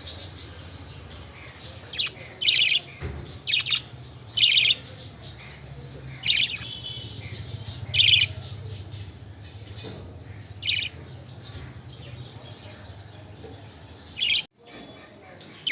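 Pet budgerigars chirping: short, loud chirps, about eight of them scattered with gaps of a second or more between them, over a steady low hum.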